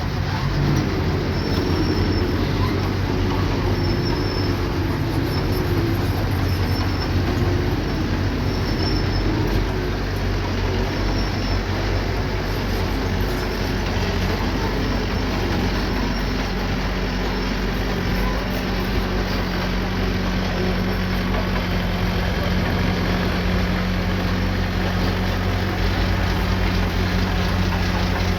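Diesel engine of a small crawler bulldozer running steadily while it works, with faint high squeaks now and then in the first few seconds. The engine note shifts to a new steady pitch about halfway through.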